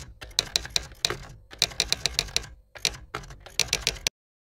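Typing sound effect: quick runs of sharp keystroke clicks with short pauses between them, stopping abruptly near the end.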